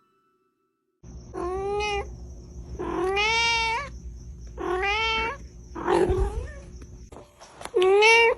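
Domestic cat meowing five times in drawn-out calls that rise and fall in pitch, the fourth rougher and noisier than the rest.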